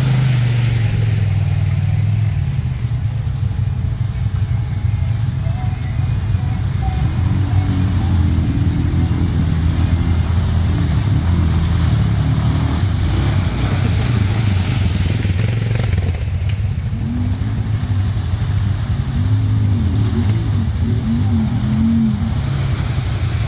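Off-road side-by-side (UTV) engine running steadily while driving on a trail. Its pitch rises and falls a few times as the throttle changes in the second half.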